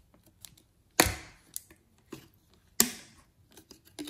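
Plastic bottle cap being twisted and pulled off a plastic squeeze bottle: two loud sharp clicks about two seconds apart, with light plastic ticks between them.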